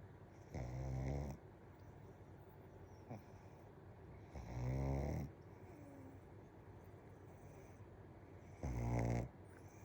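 Black pug snoring while still awake: three low snores, each under a second long, about four seconds apart.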